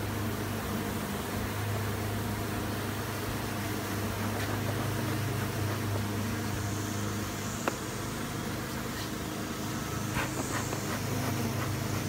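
A dense cluster of honey bees buzzing, a steady low hum.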